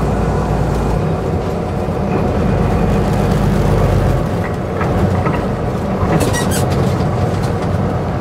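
Semi truck's diesel engine drone and road noise heard from inside the cab, steady throughout. The low engine note shifts about four seconds in, and a brief cluster of sharp clicks or rattles comes about six seconds in.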